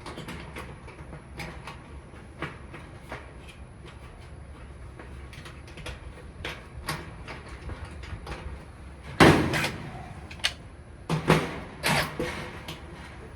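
Work noises from a clothes dryer teardown at the rear drum bearing: scattered clicks and taps of metal parts and tools being handled. A loud knock comes about two-thirds of the way in, then two more.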